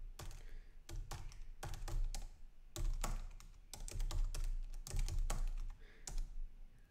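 Typing on a computer keyboard: short bursts of keystrokes with brief pauses between them.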